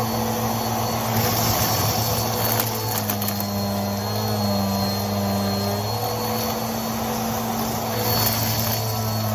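Vacuum cleaner running steadily, its motor hum and high whine dropping in pitch briefly now and then as the suction loads up. Short bursts of crackle come through as crunchy debris is sucked up.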